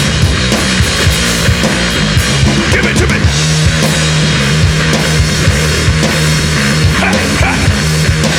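Heavy rock band playing an instrumental break: sustained low, heavy notes over a driving drum kit.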